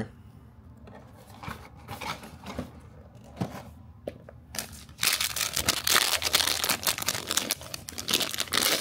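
Light handling rustles and clicks, then from about five seconds in a loud, dense crinkling and tearing as a plastic blind-bag wrapper around a small toy figure is torn open.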